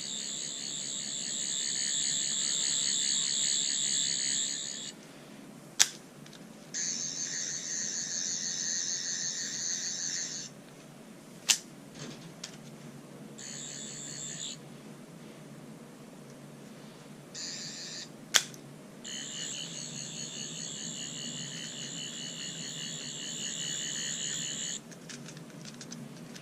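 11th/12th Doctor sonic screwdriver toy sounding its electronic effect, a high warbling whir, in five bursts of one to six seconds, with sharp button clicks between some of them.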